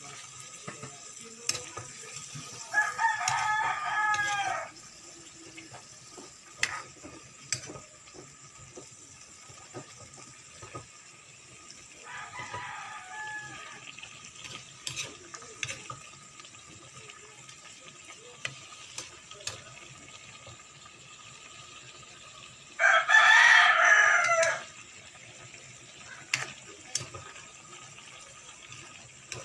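A rooster crows three times, each crow lasting about two seconds, and the last one near the end is the loudest. Between the crows, a spatula clicks and scrapes in a frying pan as vegetables are stir-fried.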